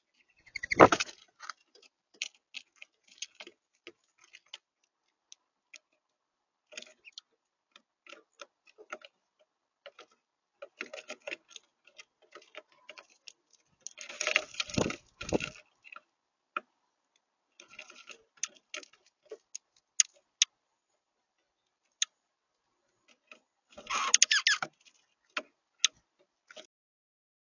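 Birds at a feeder pecking and tapping, making irregular sharp clicks and ticks, with three louder scuffling bursts: about a second in, around the middle, and near the end.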